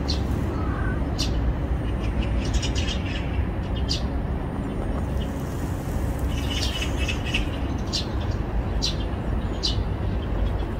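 Small birds chirping in short, high calls at irregular intervals over a steady low rumble.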